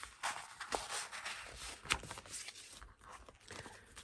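Scattered soft rustles, scrapes and light taps of a Hobonichi A6 journal being closed and handled in its fabric cover and clear plastic outer cover.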